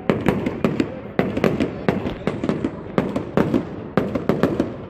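Fireworks display going off: a rapid, unbroken run of sharp bangs, several a second, each trailing off into a short rumble.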